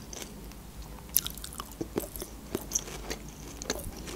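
Close-miked chewing of a piece of grilled shashlik meat dipped in sauce: irregular soft mouth clicks, a few a second.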